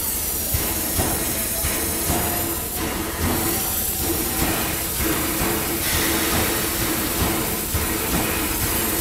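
CT273 steam locomotive moving slowly, venting steam from around its cylinders with a loud, steady hiss. A steady tone runs under the hiss, with small surges about once a second.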